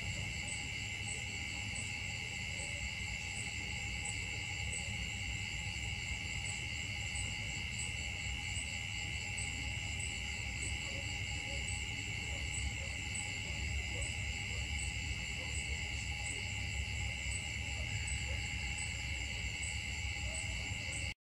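Steady, high-pitched drone of a forest insect chorus, several shrill tones layered together with a faint pulse about twice a second, over a low rumble. It cuts off suddenly near the end.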